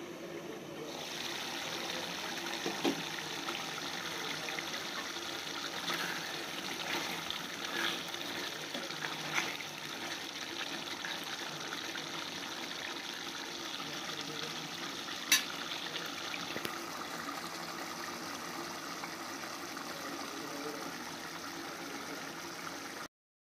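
Chicken curry simmering in an aluminium pot on a gas stove, a steady bubbling hiss, with a ladle clinking against the pot now and then and one sharper clink about 15 seconds in.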